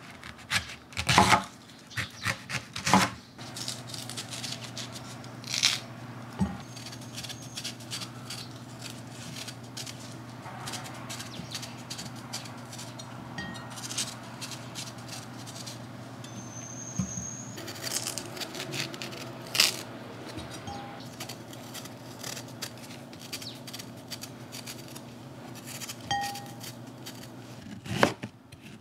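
Chef's knife cutting an Asian pear on a wooden cutting board: cuts through the fruit, peeling and coring scrapes, and irregular knocks of the blade on the board, over a steady low hum. Near the end come several quick, louder knife strokes as the pear is sliced thin against the board.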